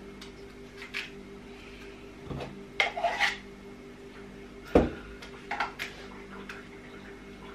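Dough being spread and pressed into a metal baking tray: scattered scrapes and light clicks of utensils on the tray, with one sharp knock a little before five seconds in. A steady low hum runs underneath.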